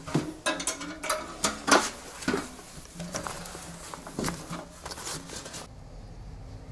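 Irregular clicks, knocks and rattles of objects being handled, with the sharpest clack a little under two seconds in; the clatter dies down near the end.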